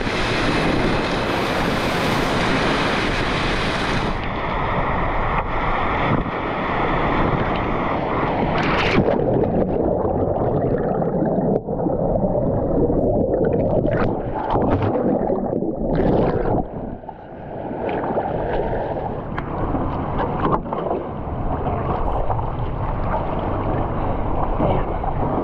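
Whitewater rapids rushing and splashing around a kayak running the channel, with wind buffeting the microphone. The rush turns duller about four seconds in and again about nine seconds in.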